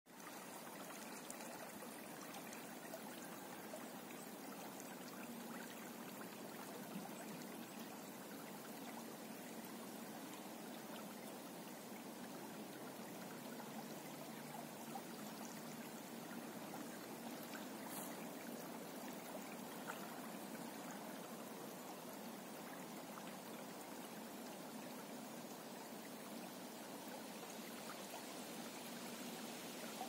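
Small river current flowing and splashing lightly around a half-submerged snag: a steady, soft rush of water.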